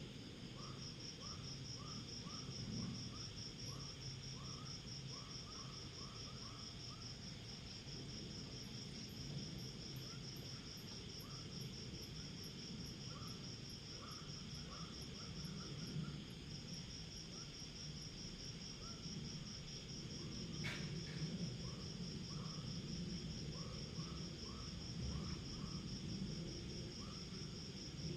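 Night insect chorus: a steady, fast-pulsing high trill, with a lower chirp repeating in runs of a few calls a second. A single sharp click comes about 20 seconds in.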